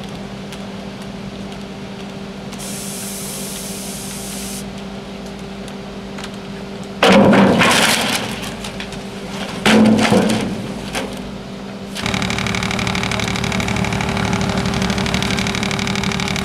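Teknamotor Skorpion 500 EB stationary drum wood chipper running with a steady hum. Loud bursts of chipping come about 7 s and 10 s in, and from about 12 s it runs louder and steadily.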